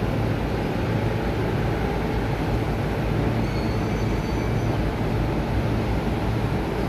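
Electric commuter train running with a steady, even rumble.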